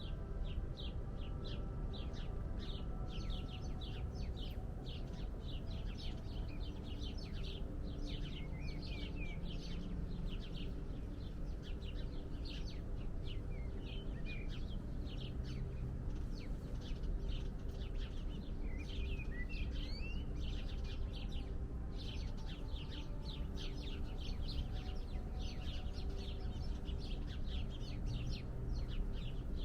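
Small birds chirping: dense runs of short, high chirps that thin out in the middle, where a few sliding notes come through, then thicken again. A steady low rumble runs underneath.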